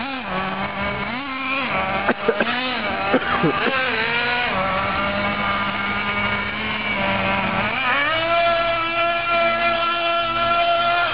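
Traxxas Jato 3.3 RC truck's small nitro two-stroke engine buzzing as it is driven, revving up and down in the first few seconds with a few sharp knocks, then climbing to a higher steady pitch about eight seconds in. It is not reaching full throttle, so the two-speed transmission stays in first gear.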